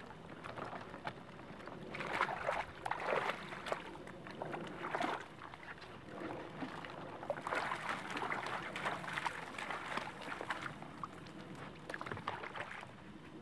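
Water sloshing and splashing around a person wading in shallow water while gathering duck decoys on their weighted lines, in irregular bursts with a few small knocks.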